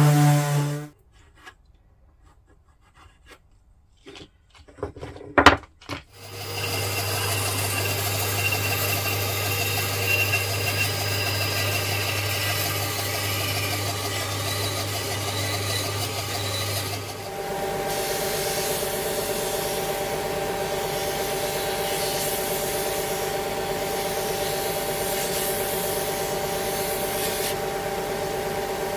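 Workshop power tool running on wood: one tool stops about a second in, a few sharp knocks follow, then a motorised tool starts about six seconds in and runs steadily, its pitch changing about halfway through.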